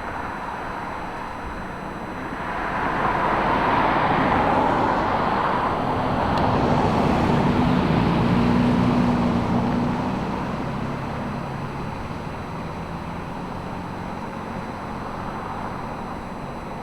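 A motor vehicle passing by: engine and tyre noise swell, peak about three to nine seconds in, then fade back into a steady background rumble.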